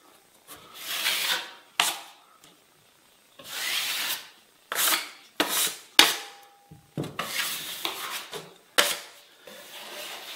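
Taping knife spreading and scraping setting-type joint compound (hot mud) onto drywall at an inside corner, in a series of short scraping swishes. Sharp clicks of the knife against the hawk fall between the strokes.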